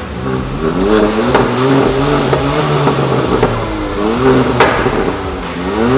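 Kia Soul GT Line engine revved repeatedly through an aftermarket exhaust with a remote-controlled vacuum valve. The revs rise and fall several times, with a sharp crack about a second and a half in and another just past four and a half seconds.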